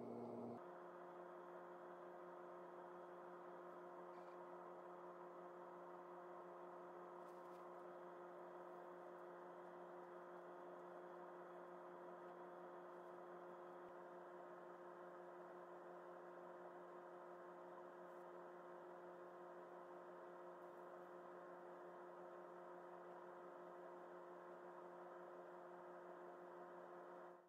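Faint, steady electrical hum of an 18,000-volt transformer powering fractal Lichtenberg wood burning, with a hiss beneath it, starting about half a second in. The hum means the current is burning branching lightning patterns through the moistened wood.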